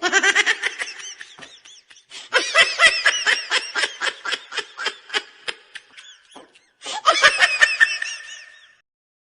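Laughter sound effect: a voice laughing in rapid, pulsing "ha-ha" bursts, in three bouts with short breaks between them.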